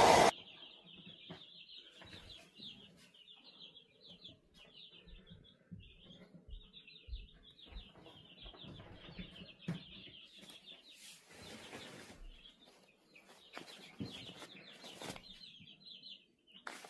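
Continuous high-pitched chirping from small animals outdoors, pulsing rapidly, with scattered faint knocks and thumps underneath.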